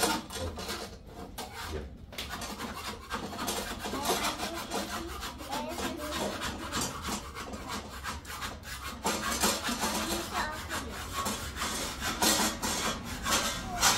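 Rough scraping and rubbing, many short strokes in close, irregular succession.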